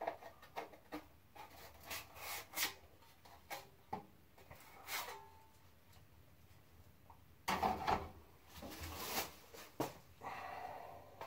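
Drywall knife scraping and knocking against the container of joint compound as mud is worked onto the blade, in irregular short scrapes and clacks with pauses. The loudest cluster comes about seven and a half seconds in.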